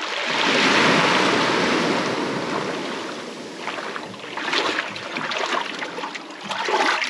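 Shallow seawater sloshing and splashing as a person wades through it toward a boat's stern. There is a broad swell of washing water over the first couple of seconds, then scattered splashes.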